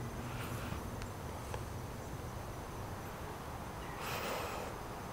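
Faint outdoor background: a steady low hum and hiss, with a brief swell of rustling noise about four seconds in.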